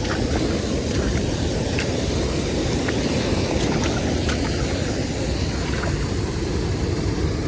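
Steady rushing noise of wind on the microphone and water, with a few faint ticks.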